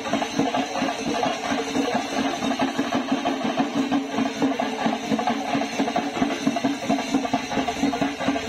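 Procession drumming: fast, continuous drum strokes in dense rolls over a steady low drone.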